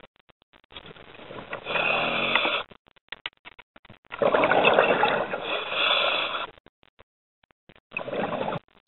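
Scuba diver breathing through a regulator underwater, heard in three bursts: one of about a second, a longer one of about two seconds and a short one near the end, with near-silent gaps between them.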